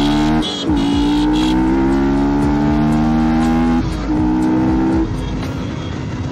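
Yamaha R15's single-cylinder engine, fitted with a loud exhaust, accelerating through the gears. The note climbs during each pull and drops at gear changes about half a second and about four seconds in, then the throttle eases about five seconds in.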